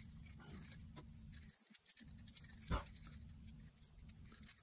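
Faint handling of an AR-15 bolt being worked with grease by gloved fingers: light clicks over a low steady hum, with one soft knock a little under three seconds in.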